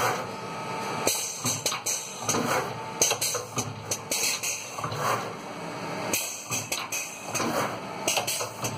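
Automatic shoelace tipping machine running through its cycle: pneumatic cylinders and clamps clacking, with short bursts of air hiss about once a second.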